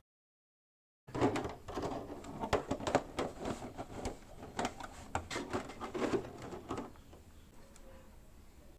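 Irregular clicks and knocks of hard parts being handled at a workbench for about six seconds, starting a second in after a moment of silence, then faint room tone.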